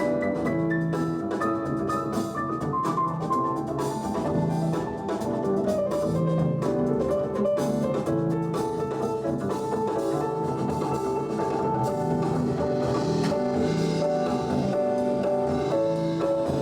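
Instrumental jazz passage with pitched notes over a drum kit, played steadily with no vocals.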